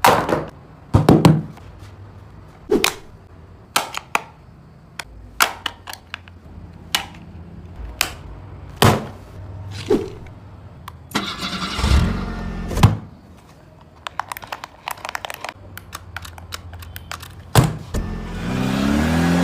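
Repeated sharp clicks and knocks as a toy RC drift car and its packaging are handled. A low motor hum runs briefly about two-thirds through, and a rising engine-like sound begins near the end.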